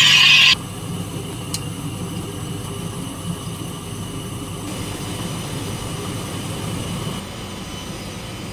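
Wire EDM machine cutting, its flushing water jet hissing, until the hiss stops abruptly about half a second in. A steady low machine hum carries on underneath, with one faint click.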